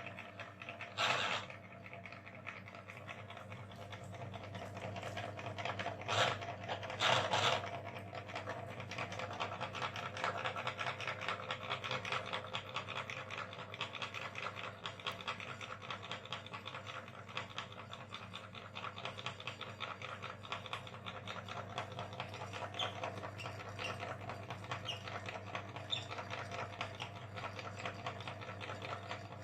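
Meat grinder motor running steadily while grinding ice cream, with a constant low hum and a fast even churning. Three louder squelching bursts come about a second in and again around six to seven seconds in.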